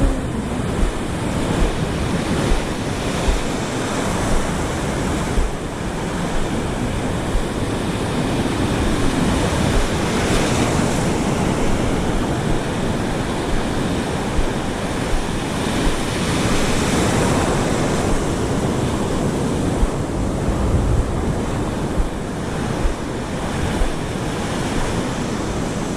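Ocean surf washing onto the beach in a steady rush that swells with the breaking waves, with wind buffeting the microphone in short low thumps.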